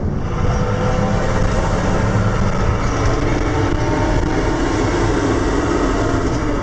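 Steady engine and road noise of a moving long-distance coach, heard from inside its onboard toilet cubicle.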